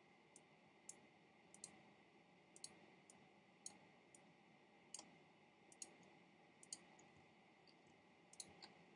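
Computer mouse clicking quietly while pixels are edited in an image program: about a dozen short clicks at uneven intervals, over a faint hiss and a thin steady high tone.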